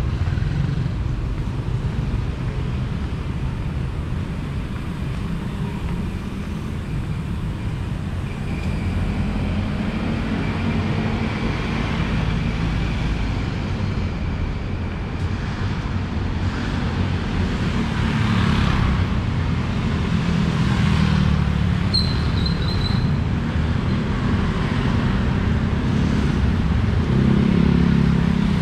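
City road traffic passing: cars and motorcycles making a steady rumble of engines and tyres that swells and eases as vehicles go by. A brief high chirp sounds about three-quarters of the way through.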